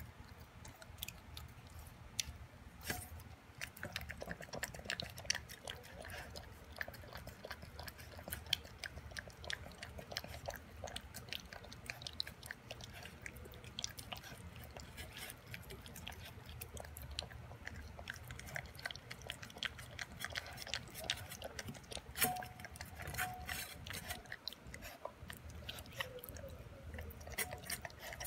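Boston Terrier puppy eating raw beef from a stainless steel bowl: steady wet chewing with a run of many small clicks.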